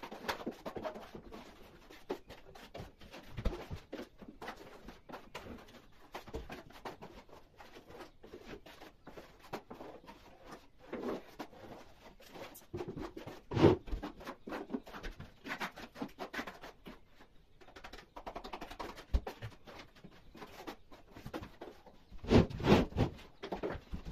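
Hand plastering tools scraping and tapping on gypsum plaster (Rotband) on a window reveal and wall, an irregular run of scrapes and light knocks. One sharper knock comes about 14 seconds in, and several louder knocks come near the end.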